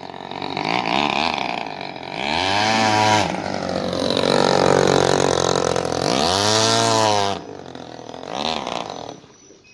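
A homemade RC speedboat's Japanese 23cc two-stroke brush-cutter engine, revved hard and eased off several times so the whine climbs and falls in surges, with one long full-throttle run in the middle, over the splash of the hull's spray. The engine sound falls away near the end.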